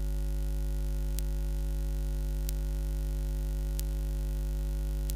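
Steady low electrical mains hum with a buzz of higher overtones, with faint clicks about every second and a quarter.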